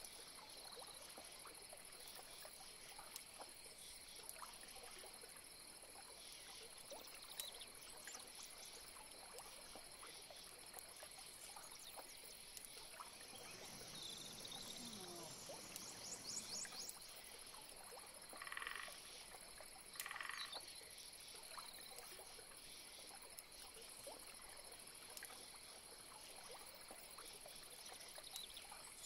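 Faint swamp ambience: a steady high-pitched drone with scattered faint chirps, and two short frog calls, one a little over halfway through and another about a second and a half later.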